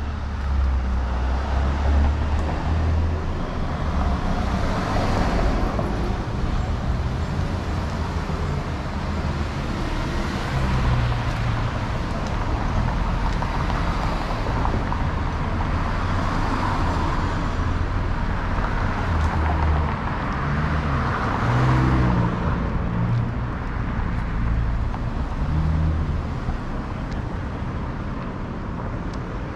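Road traffic on a busy city avenue: a steady low engine rumble with cars passing close by one after another, each swelling and fading.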